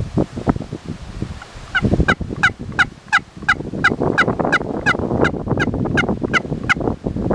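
A run of about fourteen turkey yelps, evenly spaced at nearly three a second, starting a couple of seconds in and stopping shortly before the end. Wind buffets the microphone underneath.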